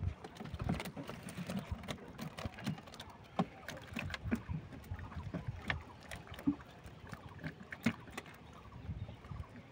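Bamboo fish trap rattling and knocking against wooden boat planks as it is tilted and shaken to empty out small fish, giving many irregular sharp clicks and taps.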